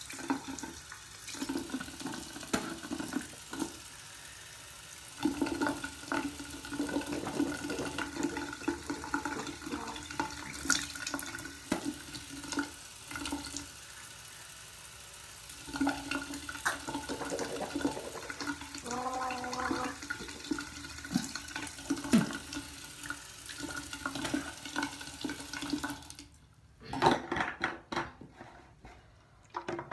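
Tap water running into a bathroom sink. It stops a few seconds before the end, followed by a few sharp clicks as a plastic bottle is capped.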